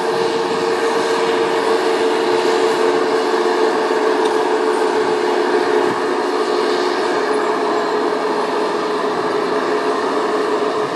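Timberpro TF840B forwarder driving with a full load of long logs, its machinery running steadily with a constant whine over a broad rumble.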